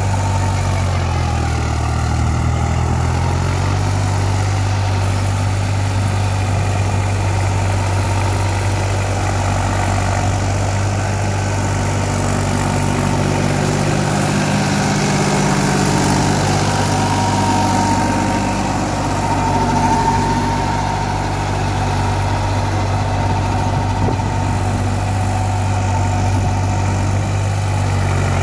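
New Holland 3600-2 tractor's three-cylinder diesel engine running steadily while it pulls a working rotary tiller through dry soil. Its pitch shifts a little now and then.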